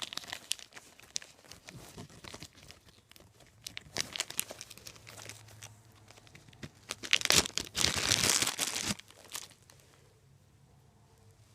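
Small plastic zip-top bag crinkling and rustling as it is handled and opened, in scattered crackles, then loudest in a long rustle a couple of seconds before quieting near the end.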